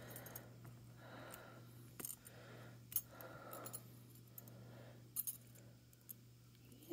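Faint, sparse clicks of glass charm beads knocking against a metal charm bar as they are slid onto it, three or four small clicks spread over several seconds, over a low steady hum.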